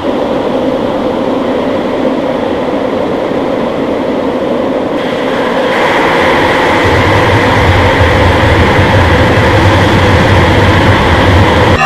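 Loud, harsh, steady noise from heavily distorted, effect-processed audio, building slightly, with a deep low hum joining about seven seconds in.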